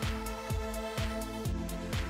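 Electronic background music with a steady beat, about two kick-drum thumps a second under sustained synth tones.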